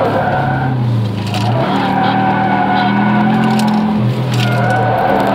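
Car engine heard from inside the cabin while lapping a race track. The revs dip about a second in and again near four seconds in, then climb as the car accelerates.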